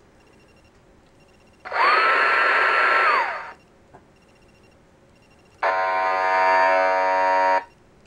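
Sound effects from a novelty miniature-bathroom tissue box played through its small speaker: about two seconds in, a rushing, water-like noise with a tone that rises, holds and falls, lasting about a second and a half; then near the end a steady buzzing sound of several tones at once for about two seconds.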